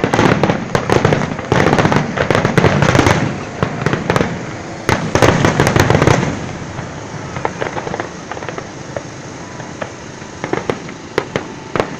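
Fireworks display: dense volleys of bangs and crackling for about the first six seconds, thinning out to scattered pops.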